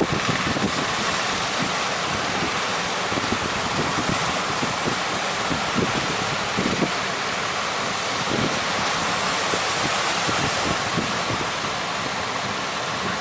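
Steady rush of strong wind and sea waves, with wind buffeting the microphone in small low thumps.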